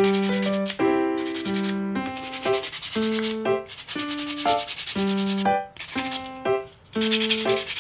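About 180-grit sandpaper rubbed back and forth by hand over the cut end of a white resin angle strip, in runs of rasping strokes with short pauses, smoothing the cut edge. Background music with keyboard-like notes plays throughout.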